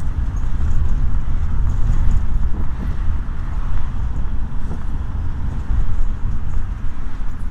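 Steady low rumble of engine and road noise heard inside a van's cabin while it drives in traffic.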